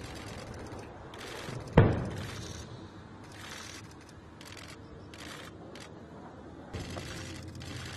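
A distant explosion about two seconds in: one sudden bang that dies away in a rumble, from a shell striking a built-up area under bombardment. A steady hiss runs underneath.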